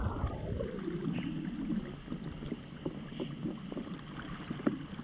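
Water swishing and sloshing around legs wading through a flowing river, over the steady rush of the current. The sloshing is strongest at first and eases after about two seconds, leaving small scattered splashes.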